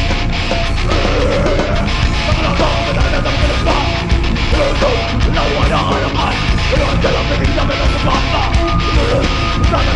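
Live hardcore band playing loud and steady on distorted electric guitars, bass and drums, with shouted vocals starting about a second in.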